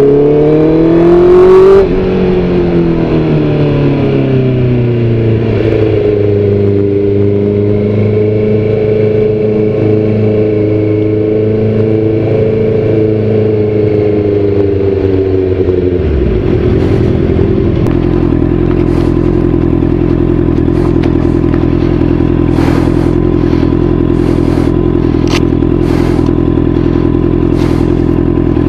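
Motorcycle engine pulling up in revs for about two seconds, then falling and running at varying revs. About sixteen seconds in, the note drops and settles to a steady pitch, with scattered sharp clicks and knocks over it.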